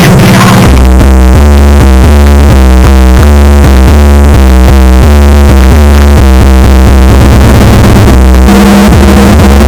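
Electronic dance music played at full volume through a car sound system, dominated by a heavy, pounding bass line of short repeating notes.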